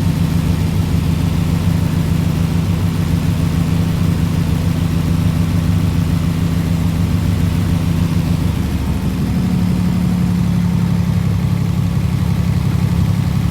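An engine running steadily at idle, its pitch stepping up slightly about nine seconds in.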